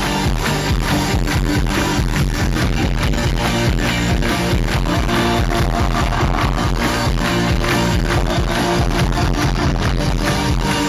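Live glam rock band playing: guitars over a steady drum beat, in a loud audience recording of poor sound quality.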